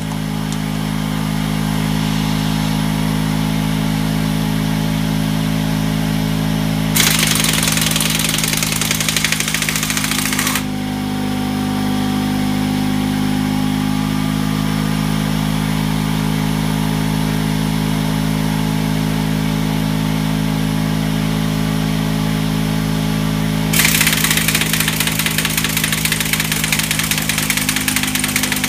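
Kobalt 3-gallon pancake air compressor's motor running steadily while an air impact wrench hammers at a car's lug nuts in two bursts: one about 7 seconds in lasting about three and a half seconds, and another starting about 24 seconds in. The wrench is working against lug nuts torqued very tight, on a tool-line pressure that had sagged to 75 PSI.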